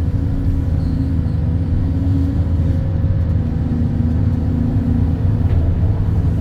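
Excavator's diesel engine running steadily while digging, heard from inside the cab, with a low drone and a faint tone that rises and falls as the machine works.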